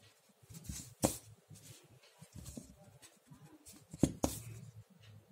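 Pencil writing and eraser rubbing on graph paper, short scratchy strokes broken by sharp taps, the loudest about a second in and again around four seconds in.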